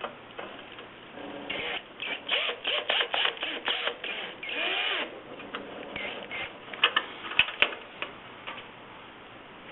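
Small screws being driven into the kiln's sheet-metal case with a power driver, run in several short stop-start bursts. A few sharp clicks near the end are the loudest sounds.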